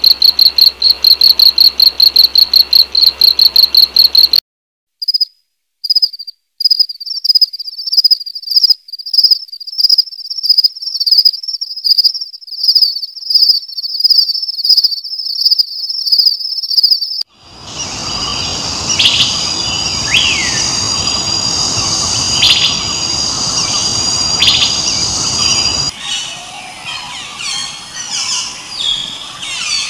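Insects chirping in fast, high-pitched pulse trains. About four seconds in the sound cuts and a second chirping starts, and past the middle it gives way to a dense, steady insect chorus with birds calling over it. The last few seconds hold only scattered bird calls.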